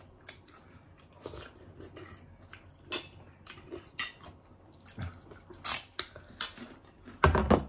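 Eating sounds: chewing and biting, with forks clicking and scraping on ceramic plates in scattered short clicks. A louder thump comes shortly before the end.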